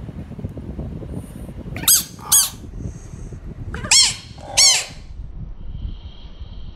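Four short, harsh calls from an animal, each rising then falling in pitch, in two pairs about two seconds apart. They sit over a steady low rumble.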